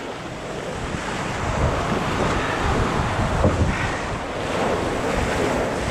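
Water rushing and splashing past the hull of an outrigger canoe as it surfs a wave, with wind buffeting the microphone in a steady rushing roar.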